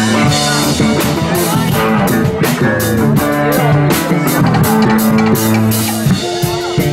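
Live band playing a dub-style song: a drum kit keeps a steady beat under guitar and held low notes.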